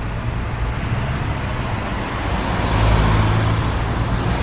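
Steady city road traffic: engines of cars and buses running, with a continuous low hum and general road noise.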